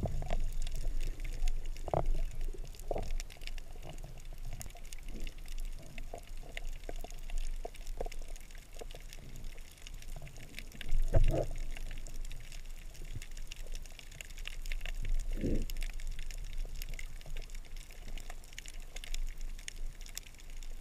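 Underwater ambience heard through a GoPro's waterproof housing: muffled water movement with many faint scattered clicks and crackles. A few louder low swishes stand out, the strongest about eleven seconds in and another near fifteen seconds.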